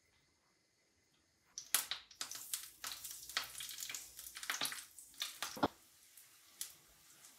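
Pancake batter frying in hot oil in a frying pan, crackling and spattering, with small knocks of the spoon. The crackling starts just over a second and a half in and dies down after about four seconds.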